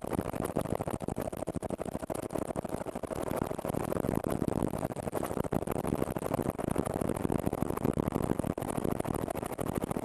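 Helicopter running, heard from inside the cabin: a steady engine drone with a fast, even chop.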